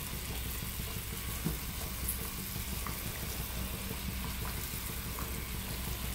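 Lamb pieces sizzling steadily in an earthenware tagine over a gas burner, with a few faint light ticks as sliced onion is dropped in, over a low steady hum.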